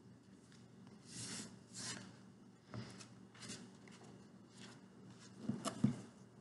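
Pages of a thick hardback book being flipped, a string of short papery rustles, with louder rustles and a couple of soft knocks of the book being handled shortly before the end.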